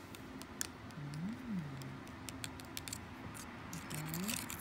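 A plastic straw stirring strawberry milkshake powder into milk in a plastic cup: a string of light, irregular clicks and taps as the straw knocks and scrapes against the cup.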